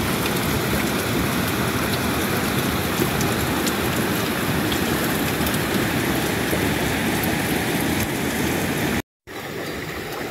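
A steady, even rushing noise with a few faint ticks in it. It cuts off abruptly about nine seconds in, then resumes more quietly.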